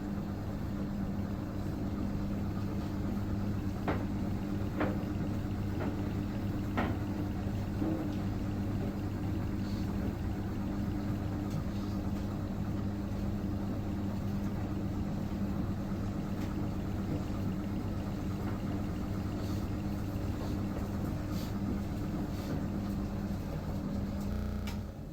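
Old tumble dryer running with a steady motor hum, with a few faint clicks from the tumbling drum. Near the end it shuts off and the hum dies away as the cycle finishes.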